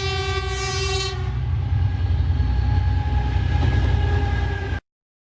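Train horn sounding and stopping about a second in, over the steady low rumble of a moving train, which cuts off abruptly near the end.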